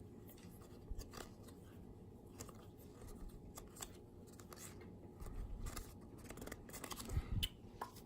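Trading cards being handled and flipped through: faint scattered clicks and slides of card stock.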